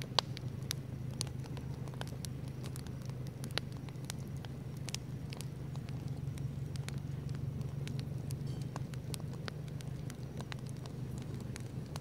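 Campfire of burning firewood crackling, with irregular sharp pops of varied loudness over a steady low rumble; one louder pop comes just after the start.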